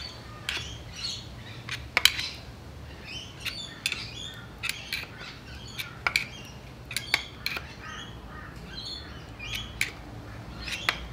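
Irregular sharp metal clicks as a screwdriver levers the crankshaft of a bare Ecotec V6 block back and forth, checking its thrust (end) play; the loudest click comes about two seconds in. Birds chirp over it.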